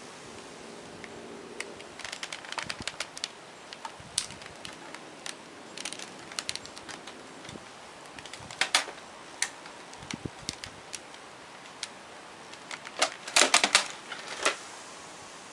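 Irregular light clicks and taps in scattered clusters, with a louder quick run of knocks near the end: a cat batting at a vacuum cleaner with its paws.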